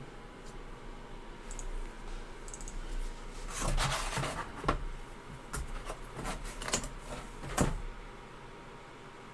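Rustling and a series of sharp clicks and knocks from handling a boxed memorabilia item and its packaging, starting about three and a half seconds in and stopping near the end, over a steady low hum.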